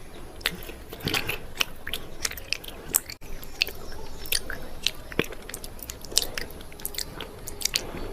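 Close-up crunching and chewing of something dry and brittle in the mouth: many sharp, irregular crunches, several a second.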